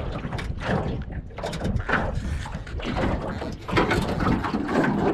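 Wind rumbling on the microphone, with splashing and a run of short knocks and rattles as a hooked catfish is hauled out of the water and swung into an aluminium dinghy.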